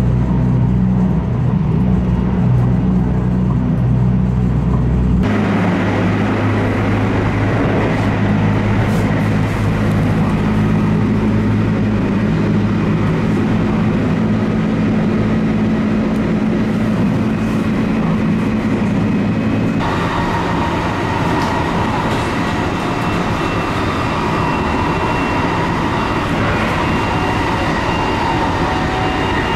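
Inside a JR West Haruka limited express (281 series electric train) running at about 105 km/h: a steady rumble of wheels on rail and the hum of the car. The sound changes abruptly about five seconds in and again about twenty seconds in, and a higher whine joins in the last part.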